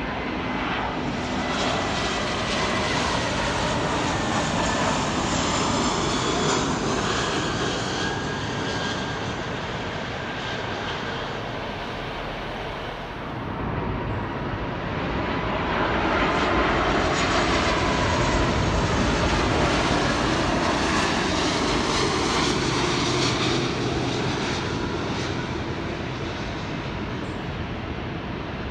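Jet engines of airliners on final approach, a Boeing 757 and then an Airbus A330, passing low overhead: continuous jet noise with a faint whine. It comes in two long swells, the second louder, with a dip about 13 seconds in.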